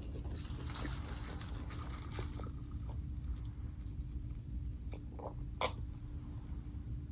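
Close-miked chewing of food, soft and crackly for the first couple of seconds, then a few small mouth clicks, with one sharp click a little past halfway. A steady low hum sits underneath.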